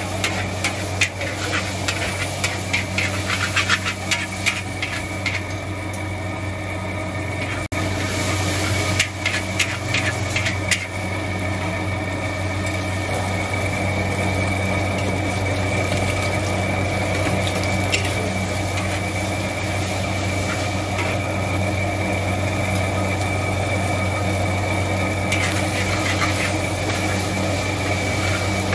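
Stir-frying in a wok: a metal spatula scraping and clattering against the wok over roughly the first ten seconds, then steadier frying noise. A steady low hum runs underneath.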